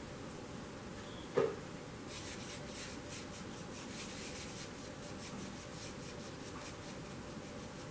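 Paintbrush bristles rubbing and scraping on a plastic paint palette in a run of quick strokes as white paint is mixed and thinned. One sudden knock about a second and a half in is the loudest sound.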